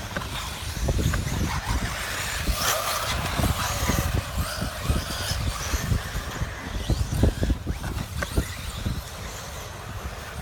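1/8-scale electric off-road RC buggies racing on a dirt track: a steady mix of motor and tyre noise, with many short low thuds.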